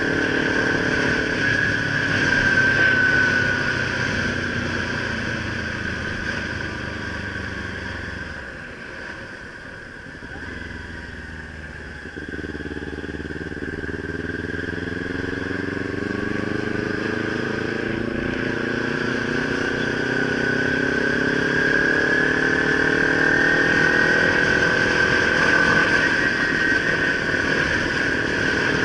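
Kawasaki Ninja 300's parallel-twin engine heard while riding. The throttle eases off and the engine falls away to its quietest about nine to twelve seconds in, then it pulls again with a rising pitch and grows louder.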